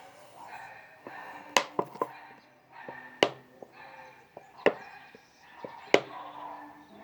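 A series of about six sharp, irregular knocks and clicks, each short and separate, over a faint background.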